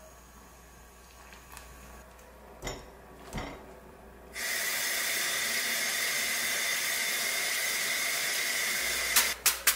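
Kitchen tap spraying water hard into a stainless steel sink as cooked noodles are rinsed in a strainer, a loud steady hiss that starts abruptly about halfway through. Before it, two soft knocks; near the end, a few sharp clicks begin.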